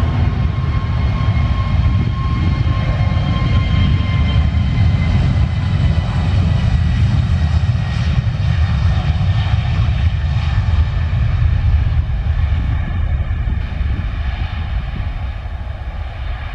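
Airbus A321neo's CFM LEAP-1A turbofans at takeoff thrust during the takeoff roll: a loud, deep rumble with steady whining tones on top. The sound fades over the last few seconds as the jet lifts off and moves away.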